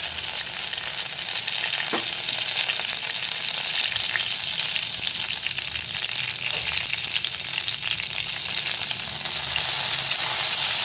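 Curry leaves, karpooravalli, thuthuvalai and tulsi leaves sizzling in hot ghee in a kadai as they are sautéed: a steady frying hiss, with a light knock about two seconds in.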